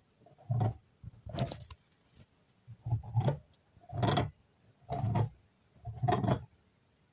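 Dog gnawing and crunching on a smoked beef bone, a short, rough crunch roughly once a second.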